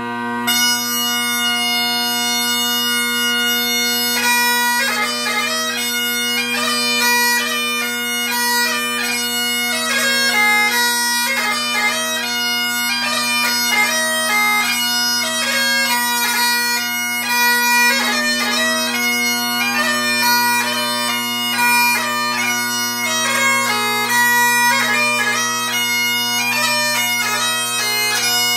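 Great Highland bagpipe played solo: the drones sound steadily underneath while the chanter comes in on a long held high note, then about four seconds in breaks into a quick melody thick with grace notes.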